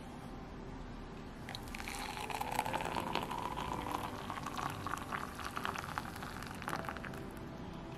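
Green matcha poured from a pitcher into a ceramic cup, a steady splashing, bubbling stream. It starts about a second and a half in and eases off near the end.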